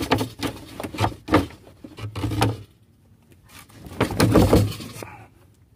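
Knocks and scrapes of a wooden bed-platform panel being lifted out of its frame. There are several sharp knocks at first, and the loudest handling comes about four seconds in.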